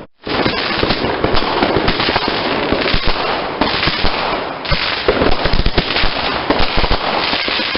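Fireworks going off in a dense, continuous barrage: many sharp crackles and pops overlapping without a break.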